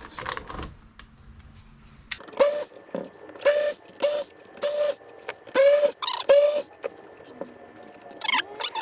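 Small cordless electric screwdriver whirring in short bursts, about six of them starting about two seconds in, each under half a second, as it backs screws out. Faint handling clicks come before the first burst.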